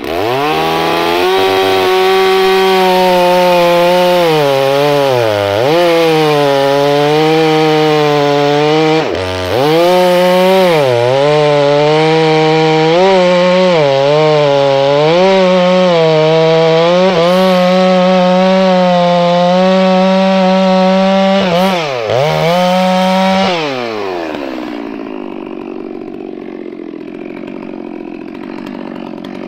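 Two-stroke chainsaw with a 36-inch bar running at full throttle as it cuts down through a stump. Its pitch dips several times as the chain bogs in the wood, and about 24 seconds in the throttle is let off and it drops to idle.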